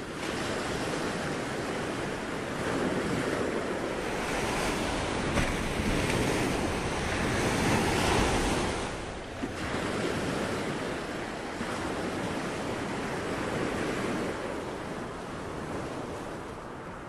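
Ocean waves washing in a steady rushing noise that swells louder around the middle and eases off near the end.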